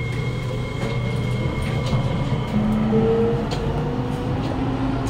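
Kawasaki Nippon Sharyo C751B metro train's echoey traction motors running under the car, their whine slowly rising in pitch over a steady low hum. Tones shift in steps around the middle, with light ticks from the wheels on the rails.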